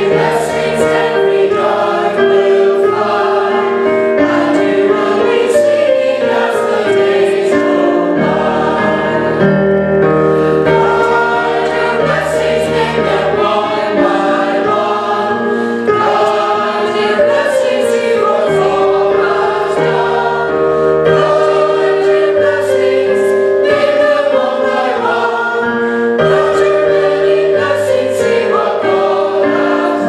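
Church choir of mixed women's and men's voices singing a hymn in harmony, continuously and at a steady volume.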